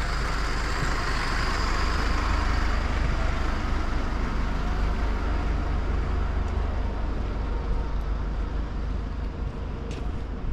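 Road traffic noise: motor vehicle engine and tyre noise over a steady low rumble, loudest in the first few seconds and slowly easing off.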